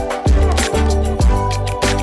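Background music with a steady beat: a deep kick drum about twice a second under sustained instrumental tones.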